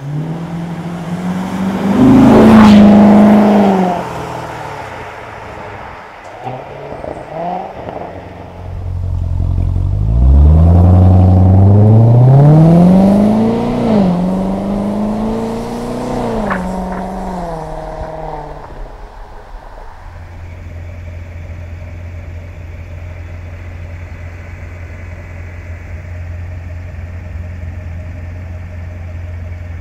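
2016 Chevrolet Corvette Stingray's 6.2-liter V8 with performance exhaust, accelerating hard past from the roadside: a short run in the first few seconds, then a longer one from about nine seconds, its pitch climbing and dropping at upshifts before fading away. From about twenty seconds in, the V8 idles steadily.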